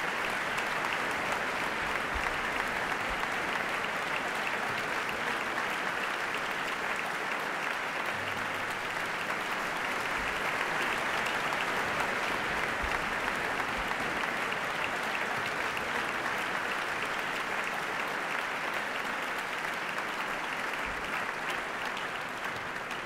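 Concert audience applauding steadily, tapering off near the end.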